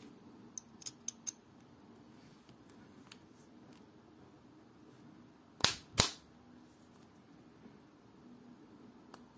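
Caseback of a vintage Omega wristwatch being pressed shut by hand: a few light metallic ticks as it is positioned, then two sharp snaps about half a second apart as it clicks into place on the case.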